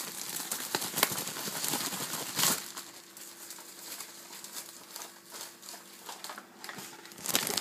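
Clear plastic oven bag with chicken pieces inside crinkling and rustling as hands work it, close to the microphone; loudest in the first two and a half seconds, then softer, picking up again near the end.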